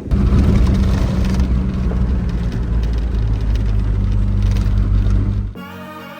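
A vehicle engine running steadily under a noisy rush of wind, its low hum shifting in pitch about three seconds in. It cuts off abruptly about five and a half seconds in.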